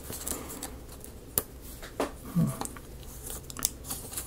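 Thin die-cut paper pieces being handled between the fingers: soft crinkling with a few sharp little clicks and ticks.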